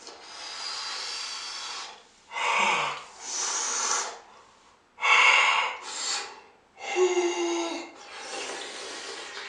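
A person breathing hard and hissing through pursed lips against the burning sourness of extreme sour candy in the mouth: about seven loud, noisy breaths with short gaps, two of them carrying a brief strained moan.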